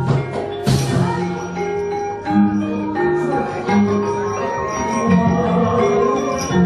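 Javanese gamelan playing battle accompaniment for a wayang kulit shadow-puppet scene: bronze metallophones striking a run of ringing notes over deep sustained gong-like tones. A sharp metallic clash cuts in about two-thirds of a second in.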